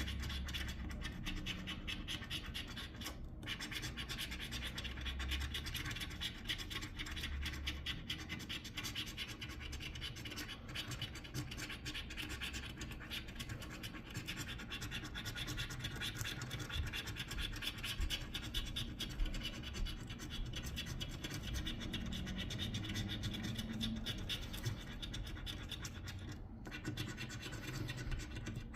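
Scratch-off lottery ticket being scratched: fast, continuous scraping of the coating off the card, with a couple of brief pauses.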